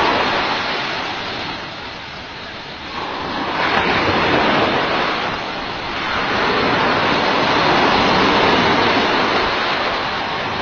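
Sea surf: waves breaking and washing up the beach in slow surges, the rushing swelling and ebbing about three times.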